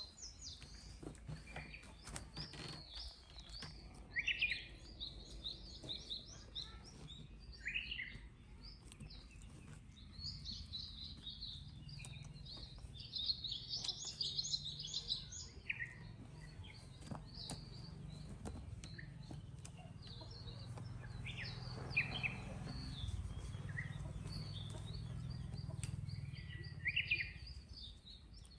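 Small birds chirping and twittering repeatedly in short high calls, densest about halfway through, over a steady low background rumble.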